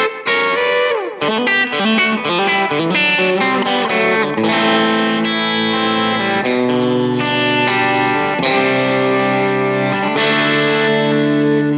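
Electric guitar played with light overdrive: quick single-note runs with a note bent downward about a second in, then held chords left to ring.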